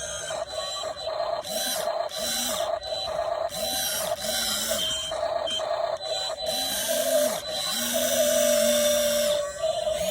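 Small electric motors of a radio-controlled toy construction vehicle whirring in short, repeated bursts, each spinning up, holding and winding down as the controls are worked.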